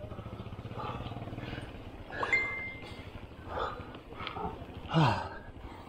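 A cyclist breathing hard under heavy effort on a steep climb, in rhythmic gasping breaths about every second and a half. The loudest breath comes near the end, a falling groan.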